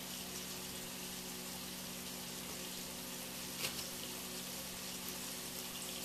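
Steady background hiss with a low hum, and a single small click about three and a half seconds in.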